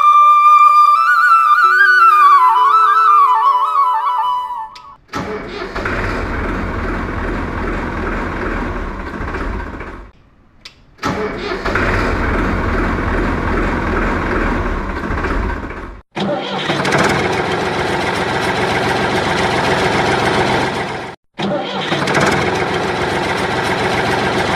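A short flute-like music jingle, then a tractor engine running steadily. The engine sound cuts out briefly about 10, 16 and 21 seconds in.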